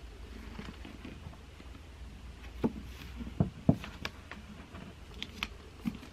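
Books being handled at a table: a run of light knocks and taps, most of them from about two and a half seconds in, over a low room hum.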